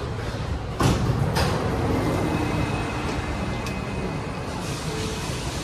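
Doors of a CT251 metro train and the station's platform screen doors sliding open, starting with a sudden clatter about a second in, over the steady noise of the stopped train and the underground platform.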